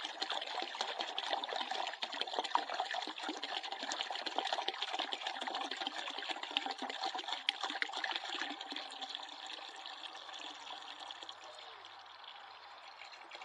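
Water pouring from a plastic gallon jug into a plastic bucket that already holds water, a steady splashing stream that grows quieter over the last few seconds as the jug empties.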